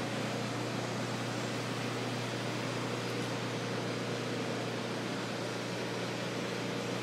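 Steady ventilation hum and hiss of a large indoor arena hall: an even rushing noise over a constant low hum, unchanging throughout.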